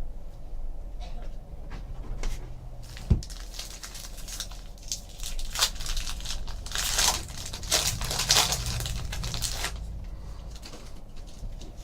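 Trading card pack wrapper crinkling and tearing as it is opened, in irregular rustling bursts, busiest in the second half. One sharp tap about three seconds in.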